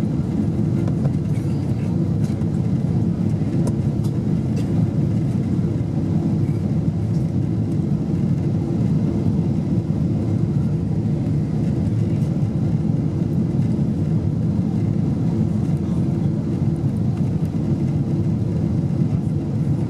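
Steady low cabin roar inside a Boeing 747-8 descending on approach: engine and airflow noise heard through the fuselage, even and unbroken.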